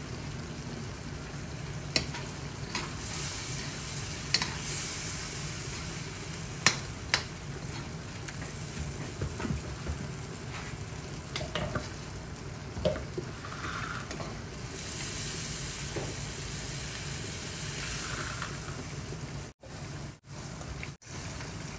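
Prawns sizzling in sauce in a wok, stirred with a metal spatula that clicks and scrapes against the pan every few seconds. The sound drops out briefly three times near the end.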